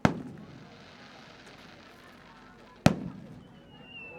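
Fireworks bursting: a sharp bang right at the start with a rumbling tail that dies away, a second bang about three seconds in, then a thin whistle, falling slightly in pitch, near the end.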